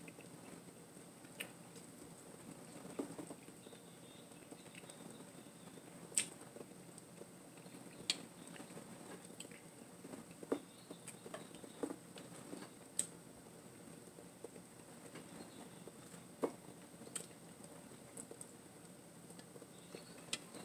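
Faint eating sounds of fried chicken being picked apart and chewed: irregular small clicks, crunches and mouth smacks every second or two over a low steady background.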